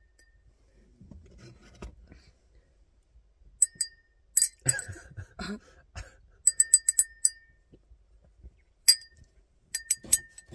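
Metal fork tapping a stemmed wine glass: sharp clinks that each ring briefly at a steady pitch. They come in short runs, with a quick series of about six taps a little past the middle and another cluster near the end.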